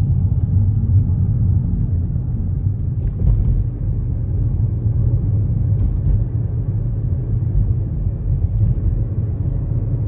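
Steady low rumble of a car driving at highway speed, heard from inside the cabin.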